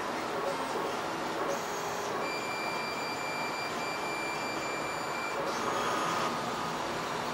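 A massage mattress's kneading and vibration motors running with a steady mechanical hum. A thin high whine joins for about three seconds in the middle.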